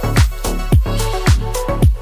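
Upbeat dance music with a steady beat. Deep bass drum hits drop in pitch, about two a second, under a melody.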